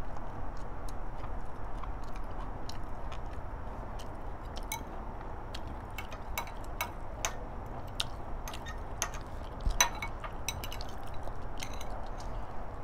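Metal utensil clinking and scraping against a glass bowl while eating, a scatter of light clicks every half second or so, with one louder knock about ten seconds in.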